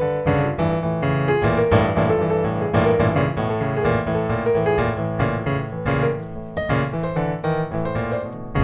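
Background music: a piano melody with many quick notes and sustained chords.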